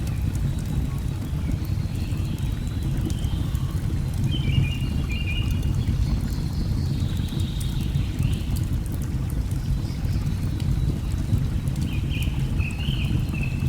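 Steady low rush of a waterfall mixed with faint crackling from a log fire, and a bird chirping briefly twice, once about four seconds in and again near the end.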